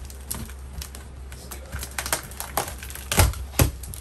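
Cardboard shipping box being opened by hand: flaps and packing handled with scattered taps, scrapes and rustles, and two louder knocks close together about three seconds in.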